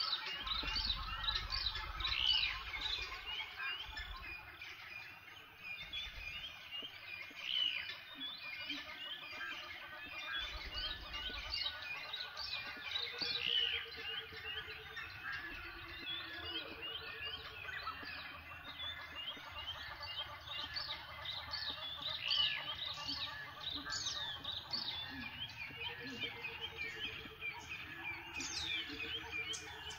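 Dense chorus of many wild birds chirping and calling all at once, with a few lower pulsed trills now and then and brief low rumbles early on.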